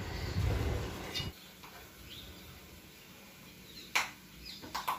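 Wheat starch slurry poured and scraped by hand from a steel bowl into a plastic tub: a low splashing for about the first second, then quiet with a sharp click near the end.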